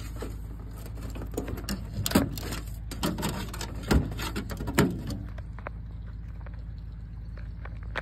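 Knocks, clicks and rattles from a purple martin house being handled and closed up, loudest about two, four and five seconds in, then lighter handling ticks over a steady low rumble.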